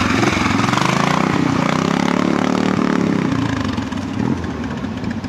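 Engine of a pre-65 classic trials motorcycle running as it is ridden through the section; it revs up about a second and a half in, then drops back after about a second.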